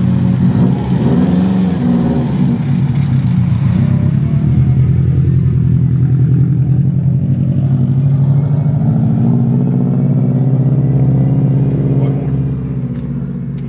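A car engine running close by, its pitch wavering briefly about a second in, then holding steady, dropping in level near the end.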